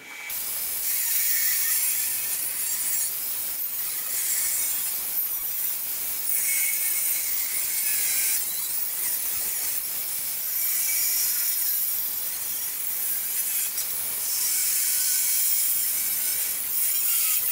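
Electric angle grinder with a thin cut-off wheel cutting into a steel truck frame rail: a continuous high-pitched grinding screech whose pitch shifts as the wheel bites and eases, with a few brief lulls.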